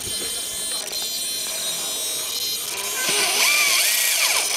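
RC rock crawler's 55-turn brushed electric motor and geartrain whining, the pitch rising and falling with the throttle as it climbs over rock; louder from about three seconds in.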